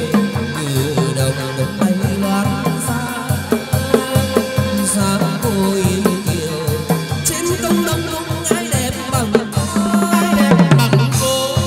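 Chầu văn ritual music: drums and percussion keep a steady beat of about three strokes a second under shifting melody lines.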